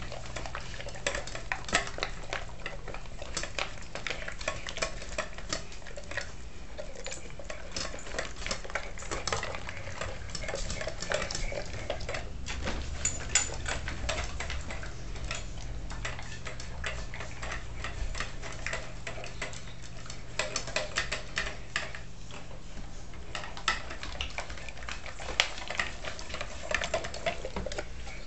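Bernese Mountain Dog eating kibble with steak and gravy from a stainless steel bowl: sloppy wet chewing and gulping, with a steady patter of small clicks from teeth and kibble against the metal bowl and now and then a louder clink.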